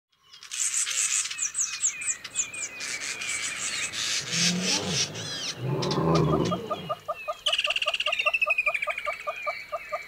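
Birds chirping and trilling in the bush. Partway through, a lower sound with a clear pitch rises and falls. Through the second half comes a steady run of short repeated calls, about four a second, with a falling trill over them.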